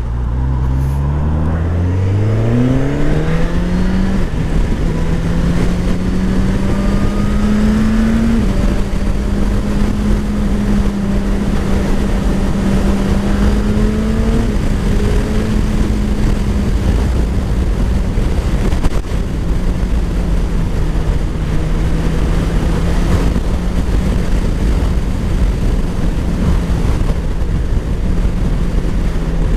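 Suzuki GSX-S1000 GT's inline-four engine through its stock exhaust, accelerating with rising revs for the first four seconds, then changing up and pulling again. From about eight seconds it cruises at nearly steady revs with small changes, over steady wind and road noise.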